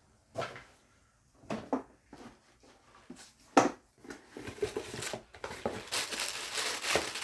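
Unboxing packaging being handled and crumpled: a few short separate rustles in the first seconds, then continuous crinkling that builds from about halfway through.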